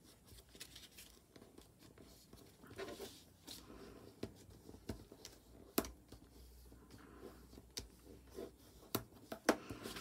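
Square sheets of patterned craft paper being folded and creased by hand: faint rustling broken by scattered short, crisp clicks of the paper.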